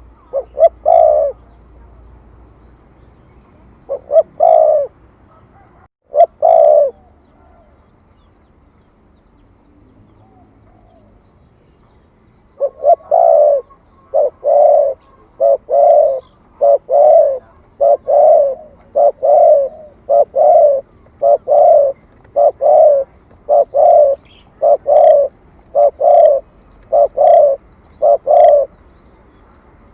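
Spotted dove cooing in the low 'gù' style. There are a few coo phrases at first, then after a pause of several seconds a long, even run of short coos, a little more than one a second.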